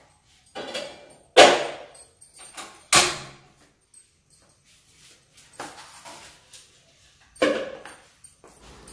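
Kitchen clatter of pans, lids and containers being knocked and set down on the counter and stove: three loud knocks about a second and a half, three and seven and a half seconds in, with lighter clicks between.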